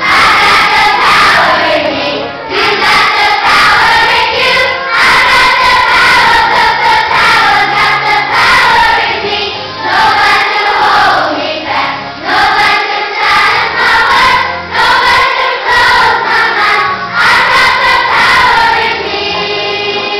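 A children's school choir singing together, loud, with short breaks between phrases; the singing stops about a second before the end.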